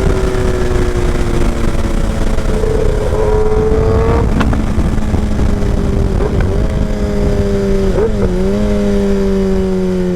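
Kawasaki ZX-10R inline-four running through a short SC Project exhaust while riding, its note sagging and rising as the throttle changes, with a sharp click about four seconds in.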